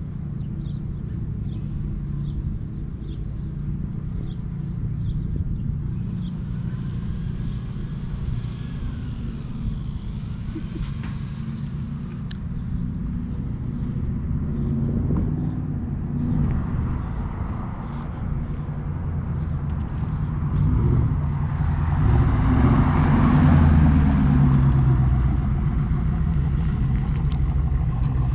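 The LT1 V8 of a 1994 Pontiac Firebird Trans Am running with a low exhaust rumble, growing louder about three quarters of the way through before easing off a little.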